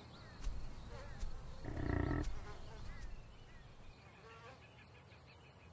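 Wildlife ambience: a steady, high-pitched insect drone with a few small chirps, and a short animal call about two seconds in, the loudest sound, followed by a fainter call a couple of seconds later.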